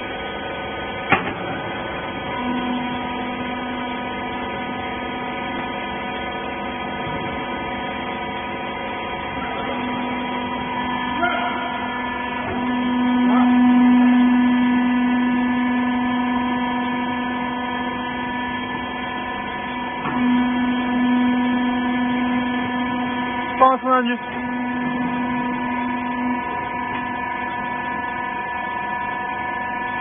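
Wiper rag baler's hydraulic power unit running with a steady hum, growing louder for a few seconds in the middle and then settling back. A couple of brief knocks, about a second in and near 24 seconds.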